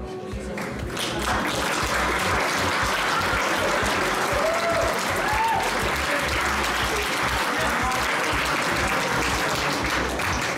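Audience applauding, swelling up over the first second and then holding steady, with background music underneath.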